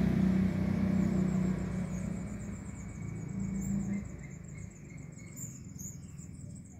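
A motor vehicle's engine hums by and fades away. Faint, thin, high-pitched chirps repeat rapidly throughout.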